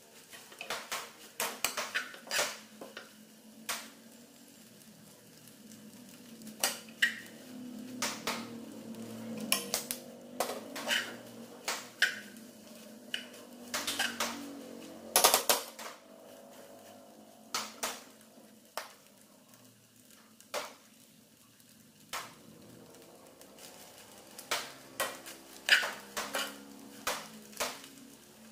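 Metal spoon stirring farfalle pasta in a saucepan, clinking and scraping against the pot at irregular intervals, with one louder knock about midway.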